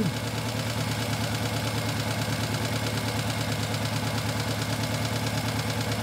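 Car engine idling with one cylinder's injector disconnected, running on three cylinders: a steady hum with an even, rapid pulse.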